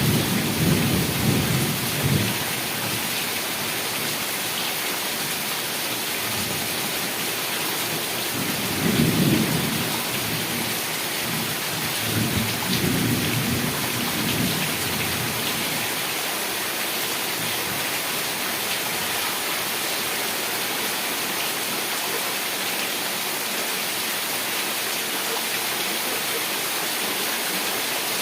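Heavy rain falling steadily, with low rumbles of thunder near the start and twice more in the first half.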